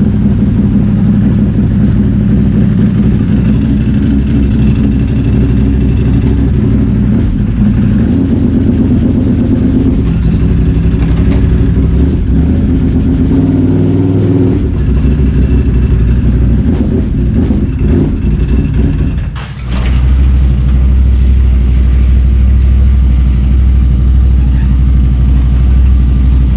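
Snowmobile engine running, its pitch shifting with the throttle; it dips for a moment about nineteen seconds in, then settles into a steady deep running.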